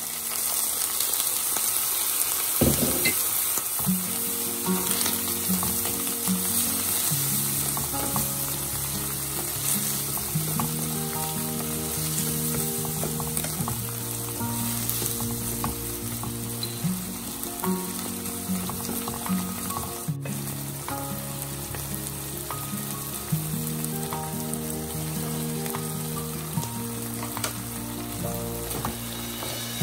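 Onions, tomatoes and carrot sizzling in sauce in a hot wok, stirred and scraped with a wooden spatula, under soft background music.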